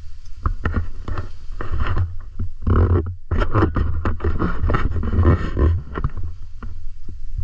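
Irregular footsteps crunching and scraping over dry leaves, twigs and stones on a rough path, over a steady low rumble of wind on the microphone.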